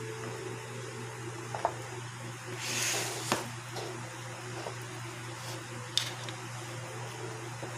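A kitchen knife and vegetables are handled on a plastic cutting board: a few sharp light knocks, and a brief rustle about three seconds in. A steady low hum runs underneath.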